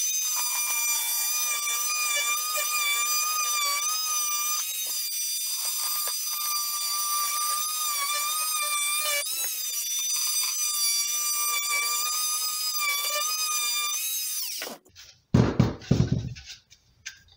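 Oscillating multi-tool cutting through PVC pipe: a steady high-pitched whine that wavers slightly in pitch as the blade works the cut, running for about fifteen seconds before stopping sharply. A few clatters follow near the end as the tool and the cut-off piece are set down.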